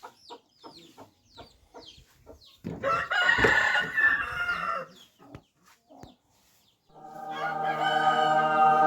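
Chickens clucking in short falling chirps, then a rooster crows loudly about three seconds in. Near the end a long, steady horn-like tone swells in and holds.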